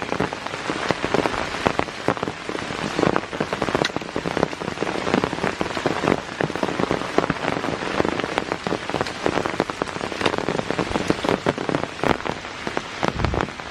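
Pouring rain falling steadily, with many close drops striking as a dense run of small sharp ticks.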